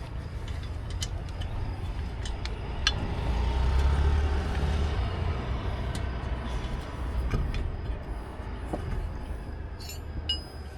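Road traffic running past, one heavy vehicle swelling louder for a couple of seconds around the middle and then fading. Now and then come a few light metallic clicks from the wheel nuts being fitted on the spare wheel.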